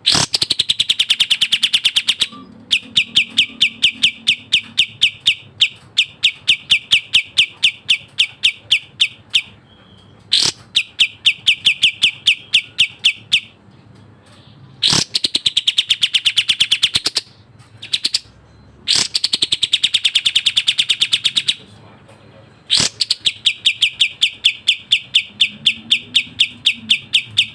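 Kapas tembak songbird singing up close: long, rapid trains of sharp, repeated chattering notes, delivered in bouts of a few seconds separated by short pauses.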